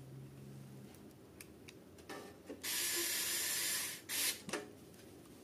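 A steady hiss lasting about a second and a half, followed by a few short clicks or knocks, during work on a desktop PC.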